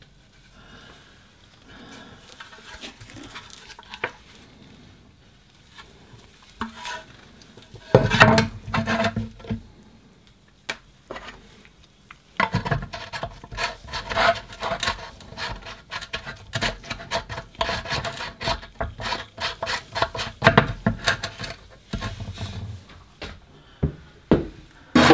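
Hands handling a grimy Briggs & Stratton push-to-prime carburettor and fuel tank assembly. Quiet rubbing at first, then from about eight seconds in, clusters of sharp clicks, knocks and scrapes with a few dull thuds as the unit is turned over and set down.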